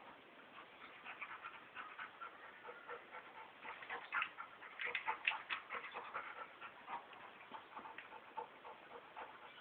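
Two dogs play-wrestling: quick, irregular scuffling and short dog sounds, busiest around the middle.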